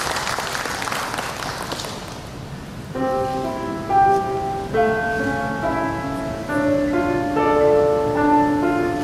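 Audience applause fading out over the first two seconds, then, about three seconds in, a grand piano begins: a slow melody of single notes, each held about half a second to a second.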